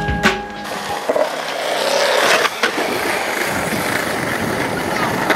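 Skateboard wheels rolling steadily over smooth concrete, with a few light clicks. In the first second the tail of a music track cuts off.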